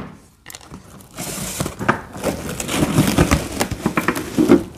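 Cardboard box being opened and a plastic-wrapped egg storage container pulled out, the plastic bag crinkling. A couple of sharp clicks come first, then dense crinkling and crackling from about a second in.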